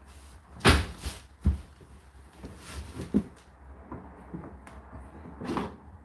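Hard plastic knocks and clicks as the fluff filter of an Indesit condenser tumble dryer is unclipped and pulled out of the door opening. There are two sharp knocks in the first second and a half, softer clicks after, and a short scrape near the end.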